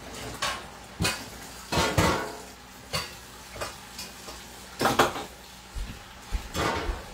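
Dishes and metal utensils clattering in a stainless-steel kitchen sink, in separate clanks every second or so, the loudest about two and five seconds in.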